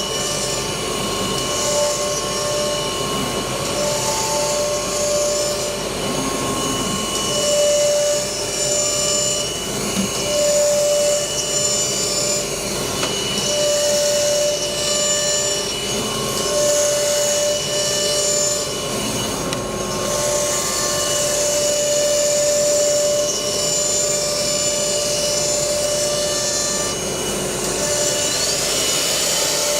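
Four-spindle CNC router running and cutting: steady spindle whine over a constant hiss of cutting, with high whining tones that drop in and out every second or two.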